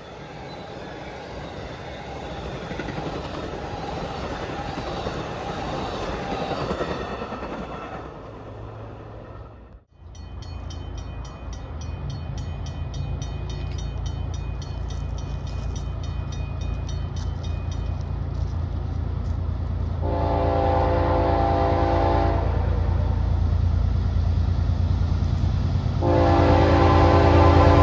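Rumbling noise of a passing train, then, after a cut, a diesel locomotive approaching with its engine growing louder. A bell rings rapidly for several seconds. The locomotive's multi-note air horn then sounds twice, each blast about two to three seconds long, the second near the end.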